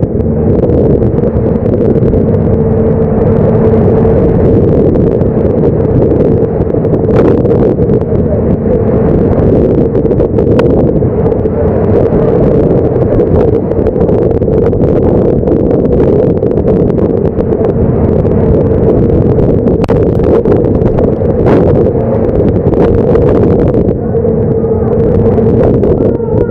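Loud, steady machinery drone aboard a longline fishing boat in heavy weather: a constant hum over a dense low rumble, with a few brief sharp knocks.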